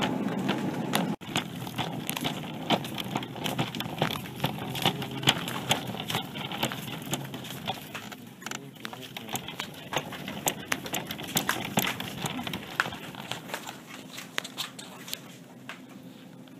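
Rapid, irregular clicking and tapping over a low murmur of voices, cutting out briefly about a second in and growing fainter near the end. These sound like footsteps on a hard floor and handling noise on a phone's microphone as it is carried.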